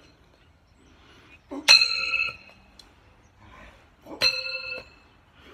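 Two thrown steel knives hit the tree trunk about two and a half seconds apart. Each gives a sharp hit followed by a short metallic ring.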